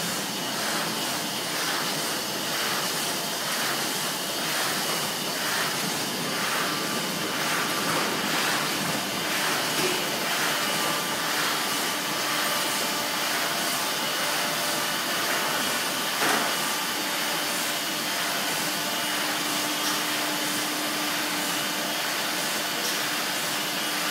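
Revotec 1040S automatic die-cutting press running: a steady machine noise with a regular stroke of its cycle about four times every three seconds, and a steady low hum coming in during the second half.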